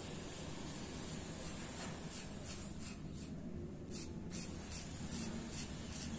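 Gillette 7 O'Clock safety razor with a Topaz Platinum blade, on its second use, scraping through lathered stubble in short repeated strokes, about three a second, with a brief pause a little past the middle.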